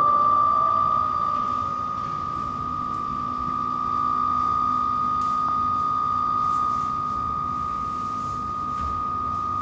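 A steady, high-pitched electronic tone held throughout, with a lower steady hum coming in about a second and a half in.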